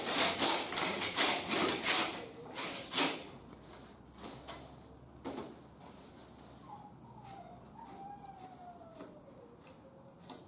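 Handsaw cutting through a pig's neck to take off the head: quick back-and-forth strokes, about three or four a second, for roughly three seconds. Then scattered light knocks as the saw is set down and the head handled, with a faint falling whistle near the end.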